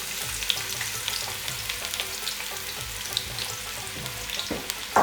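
Sliced onions sizzling in hot mustard oil: a steady crackling hiss, with a couple of sharp knocks near the end.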